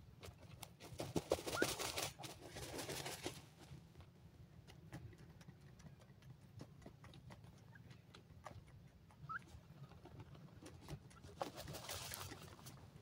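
Grey francolins dust-bathing in dry soil: wings flapping and throwing dirt in two bouts, about a second in and again near the end, with scattered ticks of falling soil between.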